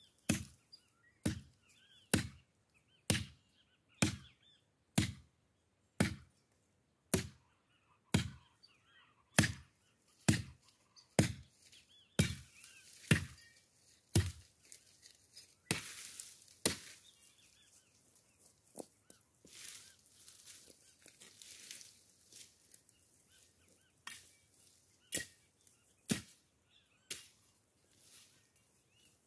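Steady hacking with a blade at woody brush stems while clearing land, about one sharp chop a second. About halfway through the chopping pauses for several seconds of rustling branches, then the chops resume.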